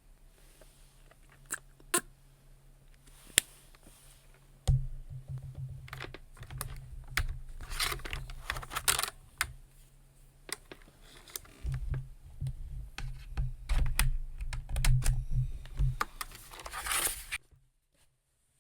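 Typing on a computer keyboard: a few separate key clicks at first, then a run of steady typing from about five seconds in that stops shortly before the end.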